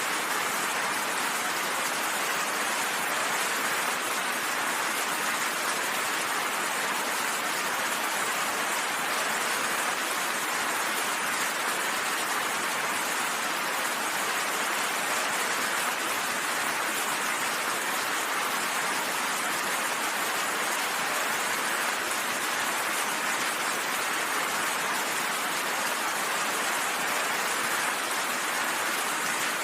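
Steady rain falling, an even, unbroken hiss of many drops with no changes or claps of thunder.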